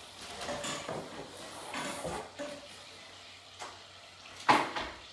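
Rustling and clattering as artificial Christmas tree branches are handled and pulled from a cardboard box, with one sharp knock about four and a half seconds in.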